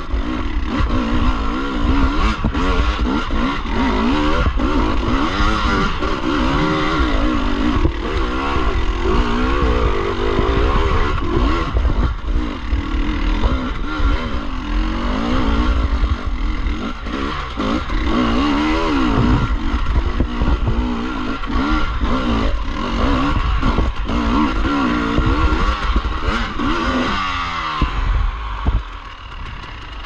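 Dirt bike engine revving up and down constantly as it is ridden over rough singletrack, with clattering knocks over a heavy low rumble. Near the end the revs slide down and the engine briefly falls quieter.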